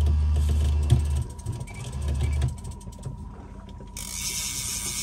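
Low hum of a Cannon electric downrigger motor, running for about a second, stopping, then running again briefly about two seconds in. A sharp click sounds about a second in, and a steady hiss starts near the end.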